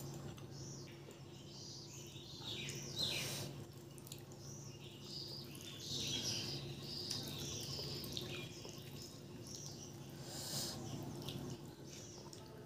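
Eating by hand: soft wet squishing as fingers mash and mix rice with thin dal on a steel plate, together with chewing and mouth sounds.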